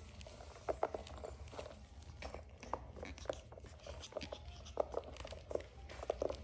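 Shih Tzu puppies mouthing and gnawing a spiky rubber ball and scrabbling on a padded mat: irregular small clicks, crunches and taps, with a steady low hum underneath.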